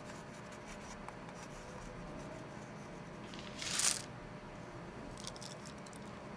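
Faint chalk scratching on a blackboard in a quiet classroom, then, about three and a half seconds in, a brief rustle as Skittles candies are shaken out of their paper packet into a hand.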